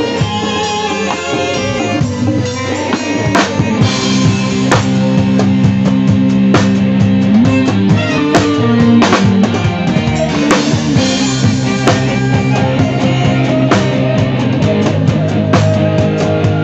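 Live dangdut band playing an instrumental passage, with a drum kit prominent (kick, snare and cymbal hits) over guitar and sustained keyboard and bass notes.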